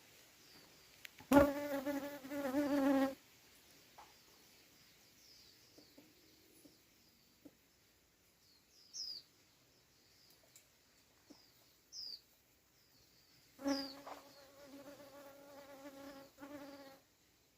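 A flying insect buzzing close by, twice: once about a second and a half in for under two seconds, and again near the end for about three seconds, its pitch wavering. Short, high, falling bird chirps come every few seconds between the buzzes.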